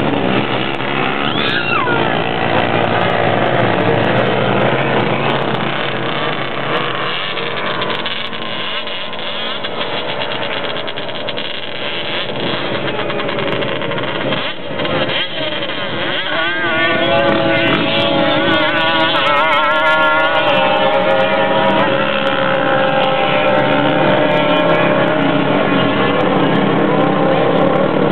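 Two-stroke Yamaha Banshee quad ATV engines running hard as the quads race up a steep sand dune. The engine sound eases off somewhat in the middle, then grows louder again from a little past halfway with a wavering pitch.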